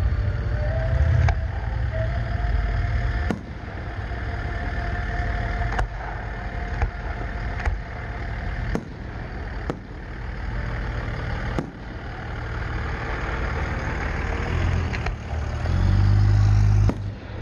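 Aerial fireworks going off: about ten sharp bangs from bursting shells, spaced a second or two apart, over a steady low rumble.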